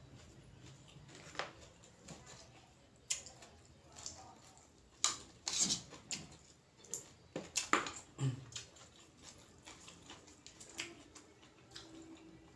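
Eating sounds: scattered sharp clicks and clinks of a spoon against ceramic bowls, mixed with chewing. The clinks come thickest about halfway through.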